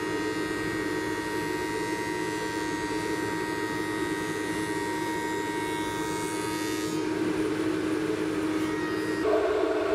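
A thickness planer running steadily with a high whine as a board is fed through it. The sound shifts about seven seconds in and again near the end.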